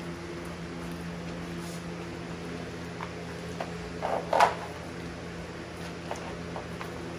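A pit bull chewing a raw whole fish: a few short wet crunches and clicks near the middle, the loudest about four and a half seconds in, over a steady low hum.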